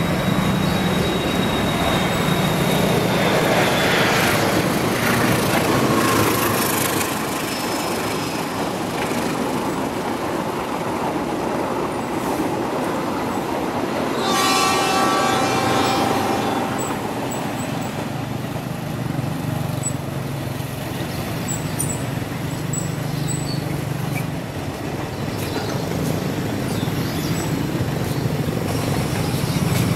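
Passenger train running past on the rails with dense, steady running noise, and a horn sounding for about two seconds near the middle.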